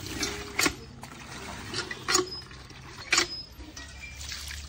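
Water splashing and sloshing in a metal pan under a hand pump as something is rinsed, with three sharp splashes about a second apart.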